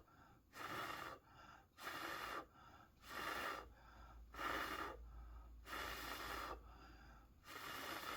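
A person breathing close to the microphone in an even rhythm, stronger breaths alternating with softer ones about every second and a bit.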